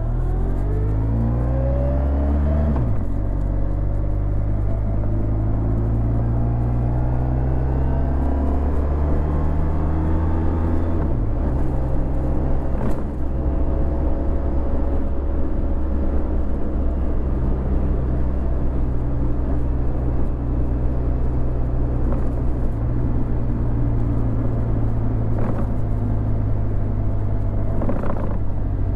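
Honda VFR1200X Crosstourer's V4 engine through an Akrapovic titanium exhaust, riding under way: the revs climb, drop at a gear change about three seconds in, climb slowly again, dip at another shift around eleven seconds, then hold fairly steady as it cruises.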